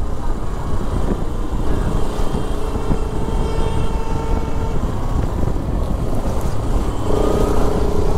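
Bajaj Pulsar RS200 motorcycle's single-cylinder engine running as the bike rides along, with heavy wind rushing over the microphone.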